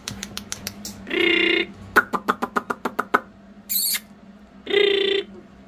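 Puppies giving two short, level-pitched yips, one about a second in and one near the end. Between the yips comes a run of quick sharp clicks and taps as they scuffle.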